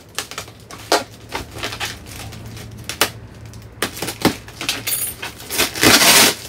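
Plastic bubble wrap being pulled, crumpled and torn by hand, giving irregular sharp crackles and clicks. A louder rush of crinkling and tearing comes near the end.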